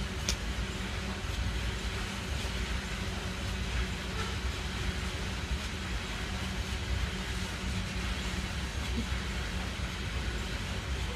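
Freight train rolling past with a steady low rumble, and a single sharp click near the start.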